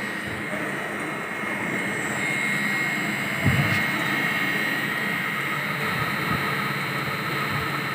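Steady running machinery: an even drone with a high, steady whine over it, and a single dull thump about halfway through.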